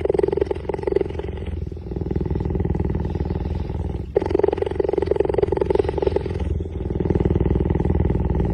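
Big-cat vocalisation sound effect: a rough, rapidly pulsing growl in long stretches, broken by short gaps three times.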